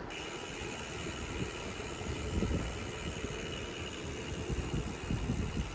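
Steady rushing noise with a low rumble, typical of wind and tyre noise on a camera riding along on a bicycle.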